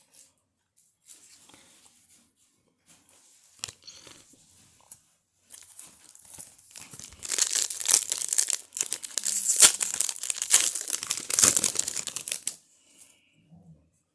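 A baseball card pack's wrapper is torn open and crinkled for about seven seconds, starting around five seconds in. Before that there is quieter rustling from cards being handled.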